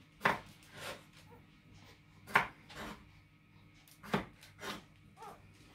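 Kitchen knife cutting raw potato on a wooden cutting board: three sharp knocks of the blade hitting the board about two seconds apart, each followed by a softer one.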